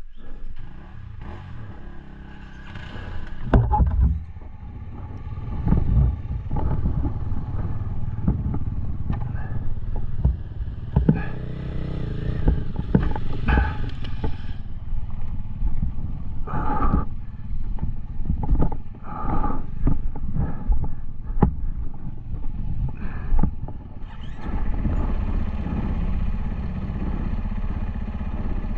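Dual-sport motorcycle engine running while riding a rough trail, with the bike clattering and knocking over the ground; the sound evens out near the end.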